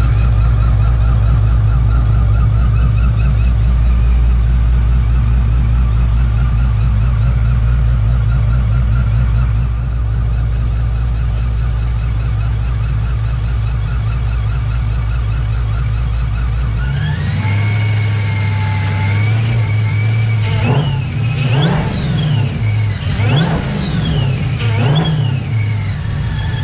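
Whipple-supercharged SRT V8 with an aftermarket cam, idling steadily with a low rumble. About two-thirds of the way through its speed rises, and then it is revved four times in quick blips, each with a climbing whine that falls away again.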